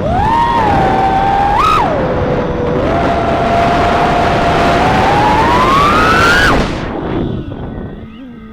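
Small 3-inch FPV quadcopter's brushless motors whining, the pitch following the throttle: a quick blip about two seconds in, then a steady climb to a high whine that cuts off suddenly near the end.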